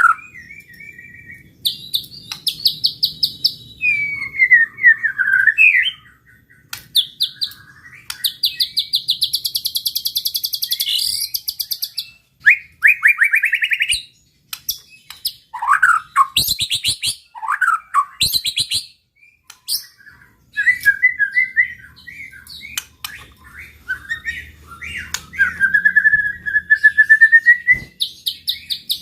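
White-rumped shama (murai batu) singing a long, varied song in fast-changing phrases with short gaps. Rapid rattling trills and dense high buzzy runs alternate with clear whistled notes that glide up and down.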